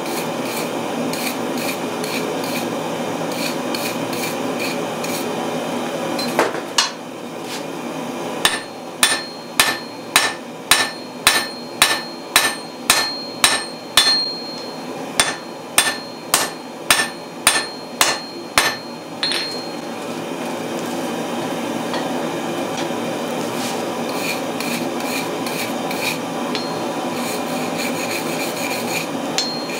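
Hand hammer striking red-hot Damascus steel on an anvil: about eighteen ringing blows at roughly two a second, over a steady rushing noise. Near the end a wire brush scrubs scale off the hot steel.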